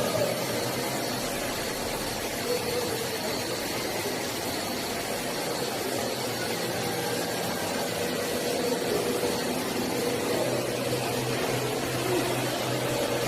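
Doosan VTR-1216 CNC vertical turning center running: a steady mechanical hum and hiss with faint tones that waver in pitch.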